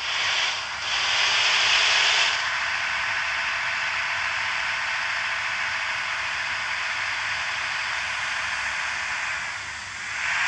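Compressed air hissing steadily from a bus's air system, louder for the first two seconds and easing a little near the end.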